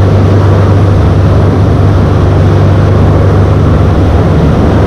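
A large sportfishing boat's engines running steadily under way, a low hum beneath the loud, even rush of the wake and wind.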